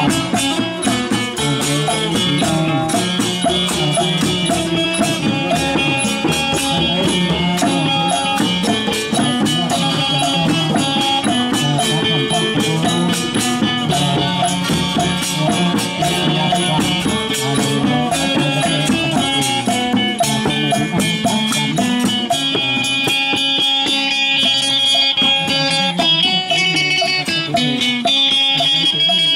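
A live northern Thai folk ensemble playing: fretted plucked lutes (sueng), hand drums and a pipe, over a steady beat of percussion at about four strokes a second.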